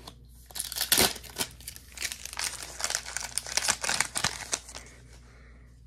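Foil wrapper of a Pokémon trading-card booster pack being torn open and crinkled by hand: a dense run of crackling from about half a second in, loudest near the start and dying away near the end.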